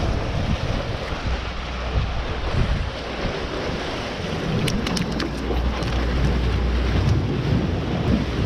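Strong wind buffeting the microphone in gusts, with surf washing against the jetty underneath. A few faint clicks about halfway through.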